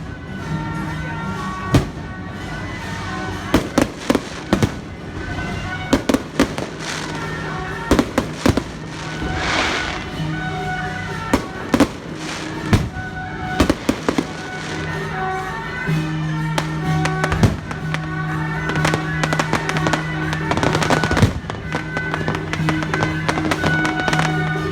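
Firecrackers and fireworks going off in sharp, irregular bangs, with a brief hiss about nine seconds in, over music with steady held notes.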